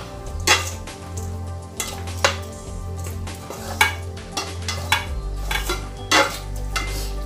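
A spoon stirring and tossing a salad of chicken feet and herbs in a stainless steel mixing bowl, with several sharp clinks of the spoon against the bowl.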